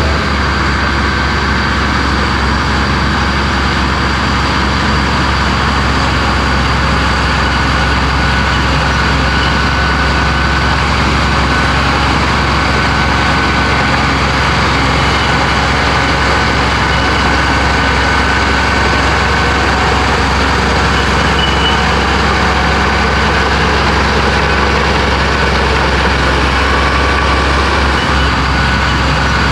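Heavy diesel engine of a Komatsu bulldozer running steadily, with a faint high whine that comes and goes.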